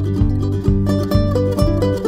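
Background music with plucked strings over a steady beat, about two beats a second.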